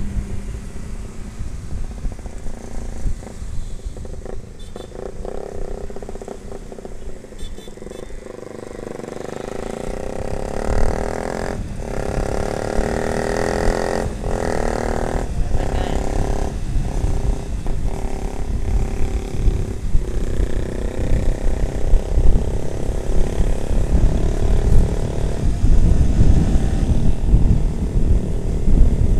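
Motorcycle ride in traffic: engine running under heavy wind buffeting on the microphone, growing louder in the second half. Around the middle another motorcycle's engine drones close alongside.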